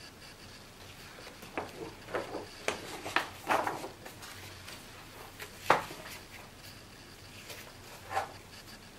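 Large pages of a picture book being handled and turned: a run of short paper rustles and soft knocks, the sharpest a little before six seconds in and another near the end.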